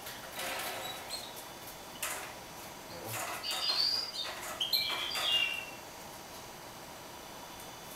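A caged mule finch (a canary hybrid) chirping in a short run of high, warbled notes about three to five and a half seconds in. Before that come a few light clicks and rustles as the bird hops about the cage.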